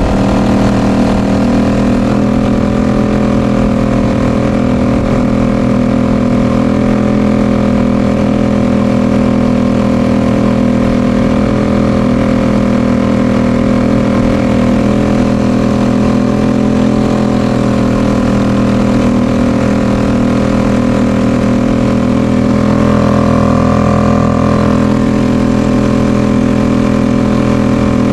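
Suzuki 2.5 hp outboard motor on a 20-foot boat running steadily under way at a constant speed, its tone shifting briefly about 23 seconds in.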